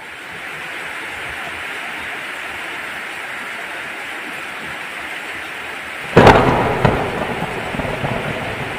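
Heavy tropical rain falling steadily, then a sudden loud thunderclap about six seconds in, rumbling away afterwards.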